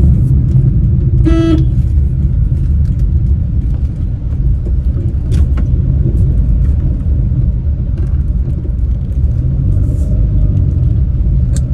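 Steady engine and road rumble inside the cabin of a moving car, with one short beep about a second and a half in.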